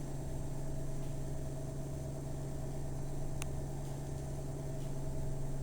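Steady low electrical or mechanical hum with a constant pitch, and one faint click about three and a half seconds in.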